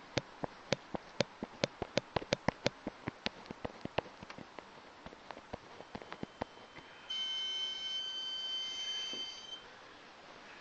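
Chirping noise from a BMW 535: short sharp chirps, about four or five a second and irregular, that grow fainter and die out after about six seconds. Then a steady high electronic beep sounds for about two and a half seconds.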